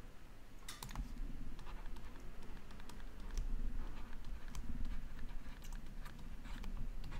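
Stylus on a tablet screen during handwriting: irregular light taps and scratches, a few close together about a second in, over a low steady room hum.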